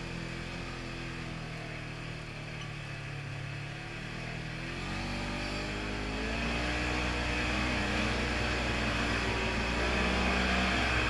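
Polaris RZR 900 side-by-side's 875 cc parallel-twin engine running at low, steady revs, then about five seconds in the throttle opens and the engine grows louder, its pitch wavering as the revs rise and fall under load.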